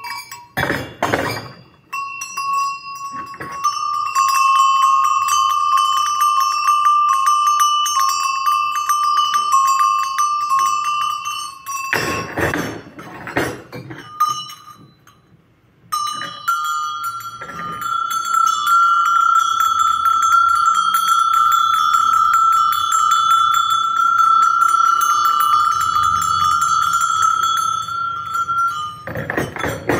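Karaca metal bells (çan) shaken by hand so the clapper strikes rapidly. One bell rings for about ten seconds, then after a clatter of handling and a short pause a second, slightly higher-pitched bell rings for about thirteen seconds. Knocks of handling come between the two bells and near the end.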